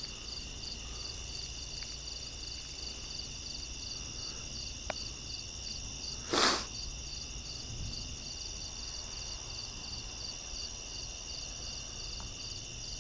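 Crickets chirping in a steady, evenly pulsing night chorus. About six seconds in, a brief loud noise stands out over it for half a second.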